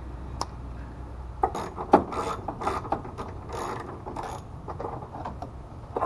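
Socket ratchet wrench on an extension clicking in several short runs of rapid strokes, starting about a second and a half in, as it backs a bolt out of the air box mount.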